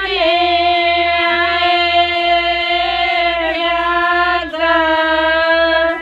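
Women's voices singing a mangal geet, a traditional wedding song, together, holding long drawn-out notes with brief breaks between phrases.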